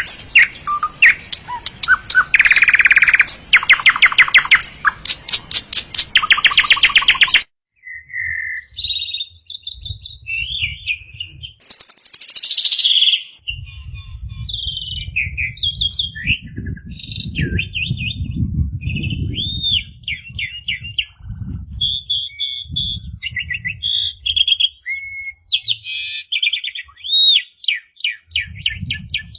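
Javan myna (jalak kebo) calling and singing: for about the first seven seconds, loud harsh rasping calls. After a sudden cut, a varied string of short chirps, whistles and trills continues over a low rumble.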